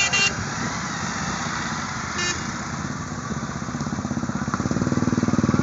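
A vehicle engine running with a regular beat, growing louder over the last second or two, with a short horn beep about two seconds in.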